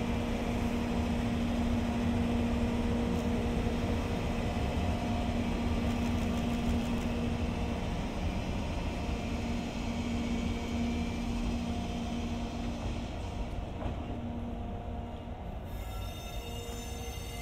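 EF64 electric locomotive and its coaches standing, giving a steady hum over a low rumble. The sound changes near the end.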